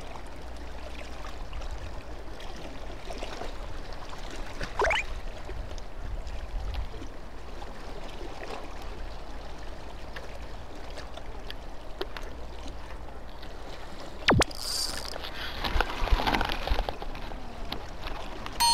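Harbour water sloshing and trickling, with a fishing rod and reel being handled. A short rising whistle comes about five seconds in; late on there is a sharp knock, then a burst of clatter.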